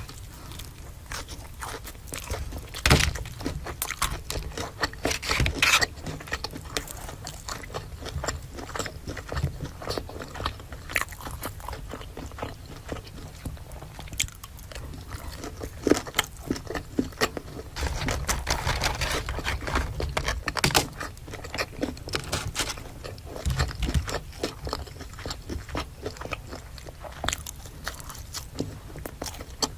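Close-miked eating: crunchy bites and chewing of crispy fried food, a dense run of irregular crackles and mouth clicks with several louder crunches along the way.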